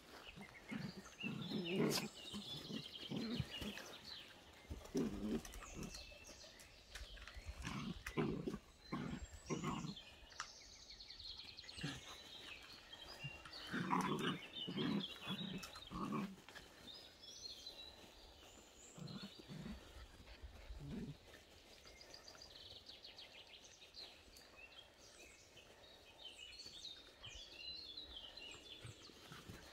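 Whippet puppies play-fighting, giving short low growls and grunts in irregular bursts that thin out in the second half.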